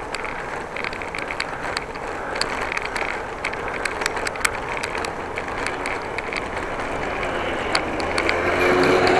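Bicycle being ridden, with steady tyre and wind noise and scattered sharp clicks from the bike's mechanism. Near the end a car's engine grows louder as it approaches.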